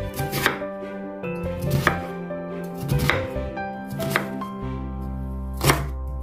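Chef's knife slicing through an onion and then a Korean leek on a bamboo cutting board, five cuts each ending in a sharp knock of the blade on the board, about one every second and a half; the last cut, near the end, is the loudest.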